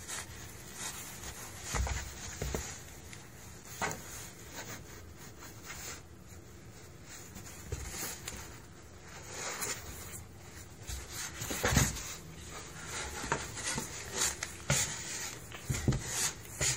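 A cat rolling and scrambling inside a cardboard box: irregular scuffs, rustles and bumps of paws and body against the cardboard and a knitted sock, the loudest bump about two-thirds of the way through.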